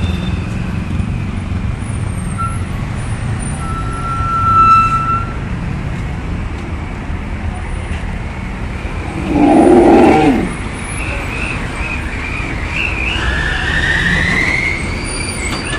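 Heavy truck's engine running close by amid road traffic, with a loud burst about two-thirds of the way through.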